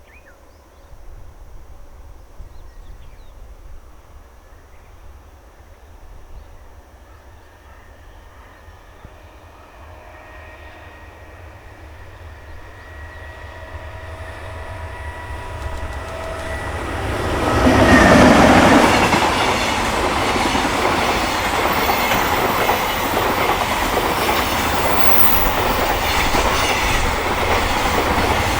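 Freight train hauled by an EH500 electric locomotive approaches, growing steadily louder, and the locomotive passes close about two-thirds of the way through. After that the wagons run past with a steady loud rumble and wheel clatter.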